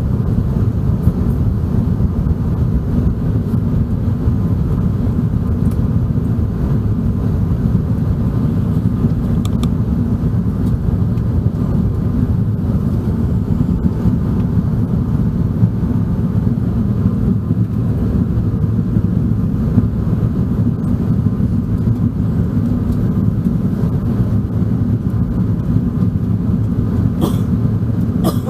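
Airbus A380 cabin noise: a steady, even low rumble of the airliner in motion. There is a faint click near the end.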